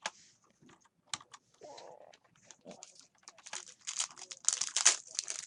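Trading cards being handled and flipped through: a run of light clicks and rustles that grows denser over the last two seconds or so.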